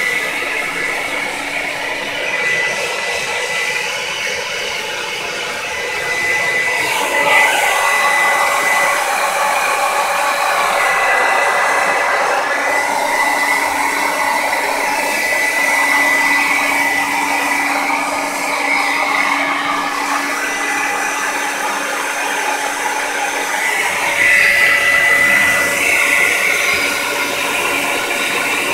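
A blow dryer running steadily, a rush of air with a high whine, as it dries a wet dog's coat. The sound grows louder about seven seconds in and again near the end as the airflow shifts.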